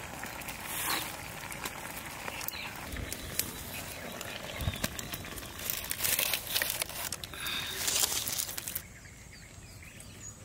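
Dry leaves crinkling and rustling in the hands as they are used as pot holders to lift a hot kadai off a wood-fired brick stove, with a couple of low knocks from the pan. The handling stops near the end, leaving quieter outdoor ambience.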